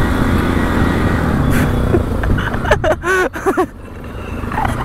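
Bajaj Pulsar NS200 motorcycle riding in town traffic, with steady engine and wind noise that drops away about four seconds in as the bike slows. Just before that, a voice calls out a few short cries that rise and fall in pitch.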